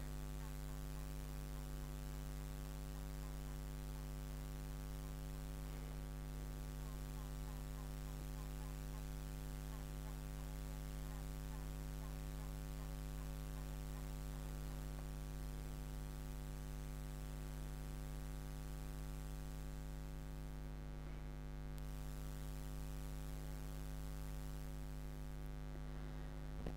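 Steady electrical hum with a stack of evenly spaced overtones, unchanging throughout.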